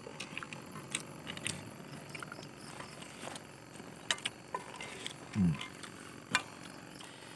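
Wooden spatula knocking and scraping against a black cooking pan of noodle soup: a scattering of short clacks and clicks. A brief low hum-like sound comes about five and a half seconds in.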